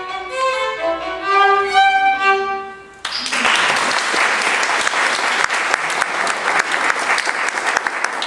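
Solo violin playing the last notes of a piece, then applause breaking out about three seconds in and running on steadily.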